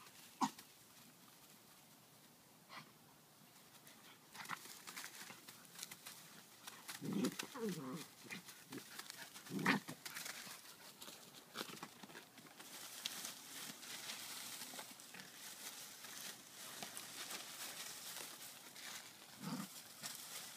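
A dog rustling and tugging at clumps of dry ornamental grass and fallen leaves. A few short, low vocal sounds from the dog come about 7 and 10 seconds in, and again near the end.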